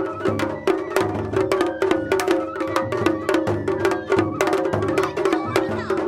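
Festival float taiko drums beaten with sticks in a fast, steady rhythm of sharp strokes, several a second, with deeper booming beats mixed in: traditional Japanese festival drumming.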